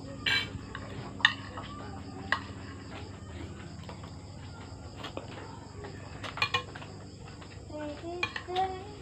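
A metal spoon clinking and scraping against a plate while someone eats rice, with a few sharp clinks spread through.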